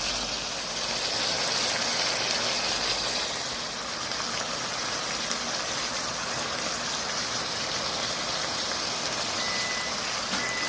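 Shrimp and chicken stir-fry sizzling in a pan, a steady hiss. Near the end a high electronic beep sounds several times.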